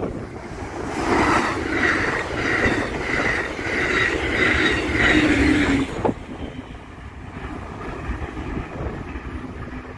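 Amtrak Pacific Surfliner bilevel passenger train passing close, its wheels rumbling on the rails with a rhythmic clatter about twice a second. The sound drops sharply about six seconds in to a quieter rumble as the train draws away.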